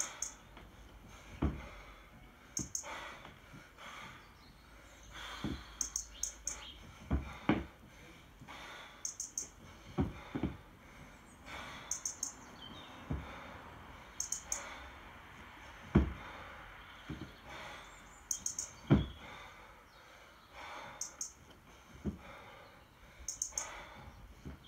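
A 24 kg kettlebell being worked through one-arm long-cycle reps on a wooden platform: dull thuds every one to three seconds as the bell is racked and jerked and the lifter's feet settle on the boards. Short clusters of high clicks recur every few seconds between them.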